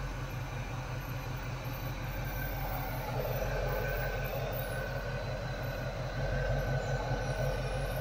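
Chevy 350 small-block V8 idling steadily on a new knock-off Rochester Quadrajet four-barrel carburetor, with an even low pulsing beat. It grows a little louder about three seconds in.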